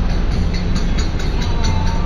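Busy city street ambience on wet roads: a steady low rumble of traffic, with music playing in the background and light ticks several times a second.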